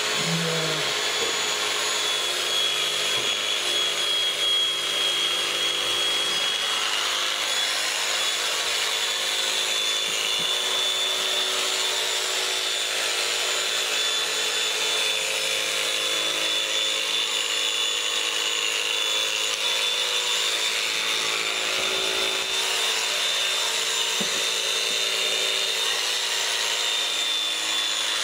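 Electric sheep-shearing handpiece running steadily as it cuts through the fleece, with a steady high whine.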